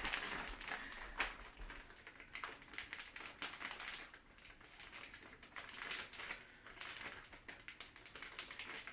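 A filled soft taco being handled on a plate: fingers tucking in shredded cabbage and folding the tortilla make quiet, irregular clicks and crinkly rustles, with a sharper click about a second in.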